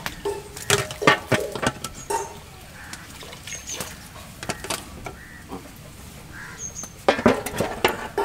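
Clinks and knocks of steel cooking pots, lids and idli plates being handled, in two busy bursts near the start and near the end. A bird gives short high chirps a couple of times.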